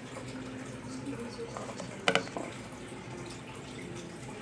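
A single sharp click about two seconds in, against a quiet steady background.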